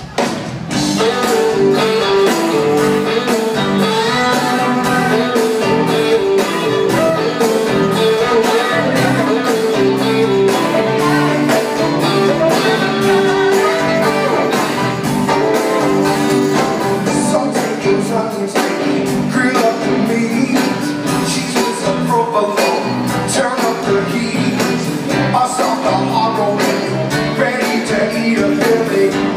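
Live rock band kicking into an upbeat song with electric guitars and a steady drum beat, starting loud and suddenly at the top.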